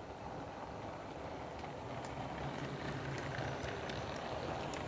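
Model train running on the layout's track, a steady rumble with light clicks of wheels over rail joints, growing louder as a model steam locomotive approaches on the adjacent line.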